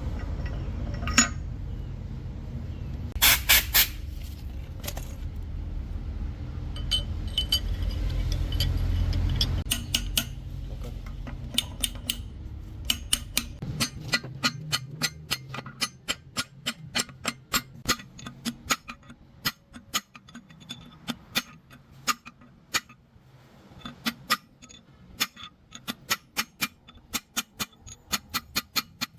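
A low machine rumble fades away over the first dozen or so seconds, with a few loud knocks near the start. Then comes a long run of sharp metallic clicks or light taps, about two to three a second by the end.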